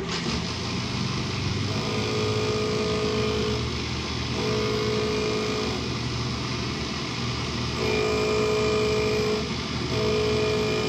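Robot Machinery Co. surface grinder running on its three-phase motor, the wheel spinning with a steady hum. A pitched grinding tone comes and goes about every two and a half seconds as the hand-fed table carries the work back and forth under the wheel.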